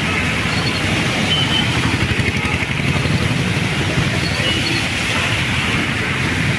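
Road traffic in heavy rain: cars, auto-rickshaws and motorcycles driving along a wet, waterlogged road, with a steady wash of rain and tyre spray. A few brief, faint high beeps come through it.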